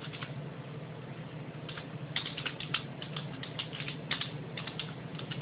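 Typing on a computer keyboard: quick runs of key clicks with short pauses between them, over a faint steady low hum.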